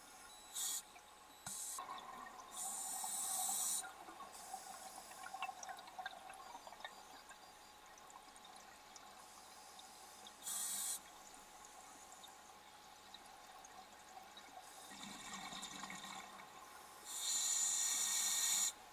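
Scuba regulator breathing heard underwater: irregular hissing bursts of exhaled bubbles, a few seconds apart, the longest near the end.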